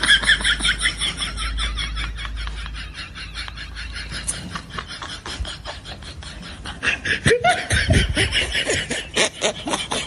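Rapid, continuous laughter, a quick string of short laughs that gets louder again in the last few seconds.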